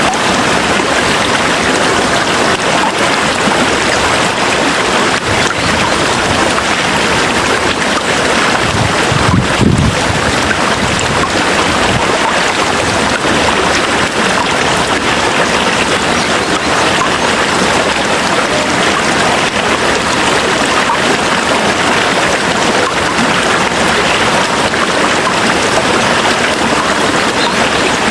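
Heavy rain falling steadily, a dense even hiss. About nine seconds in there is a brief low rumble.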